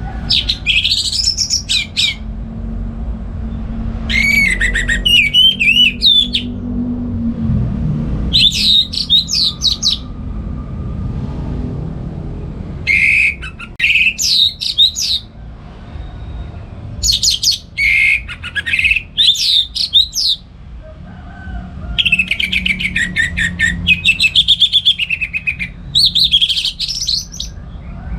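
Orange-headed thrush singing loudly in short phrases of quick, varied whistled notes, about seven phrases with pauses of a second or two between them, over a low background rumble.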